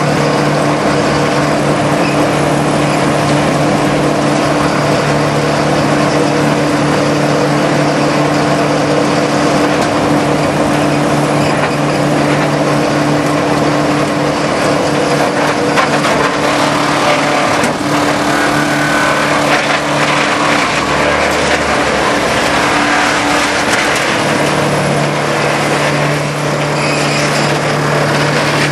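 Farmhand tub grinder running under load, its 250-hp Allis-Chalmers turbo-diesel engine giving a steady drone while the swing-hammer mill grinds wooden pallets with a dense cracking and crunching. The engine's low tone drops away briefly about two-thirds of the way through, then returns.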